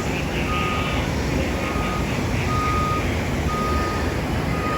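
Reversing alarm on construction machinery beeping steadily, one half-second beep about every second, five times, over a constant low rumble.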